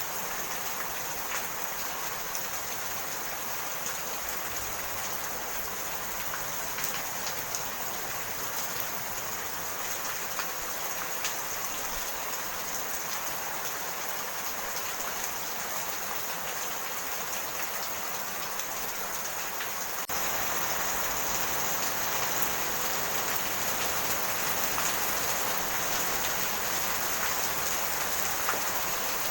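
Steady rain falling, with scattered ticks of individual drops; the rain turns abruptly louder about two-thirds of the way through.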